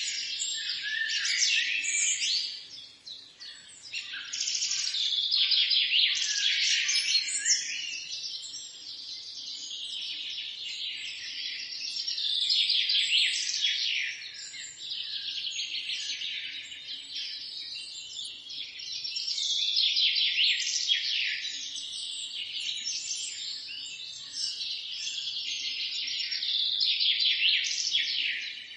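A dense chorus of many small songbirds chirping and twittering together in quick high-pitched notes. It swells and fades every few seconds, dipping briefly about three seconds in.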